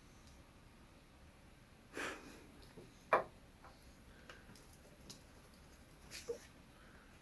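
Quiet room with a few brief handling sounds of paper craft pieces being worked at a table: a soft rustle about two seconds in, a sharp tap about a second later, and a few lighter ticks and rustles after.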